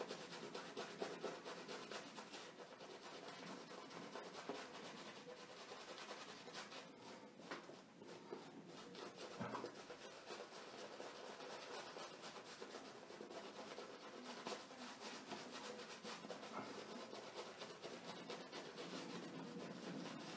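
Badger-hair shaving brush scrubbing shaving lather on a face: a faint, steady scratchy swishing of the bristles.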